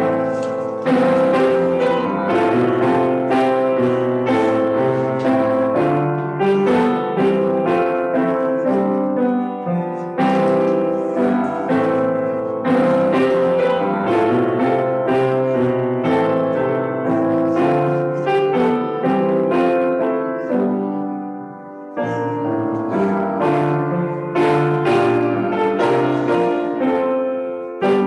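Piano playing continuously, a run of struck notes and chords, with a brief lull about 21 seconds in before the playing resumes.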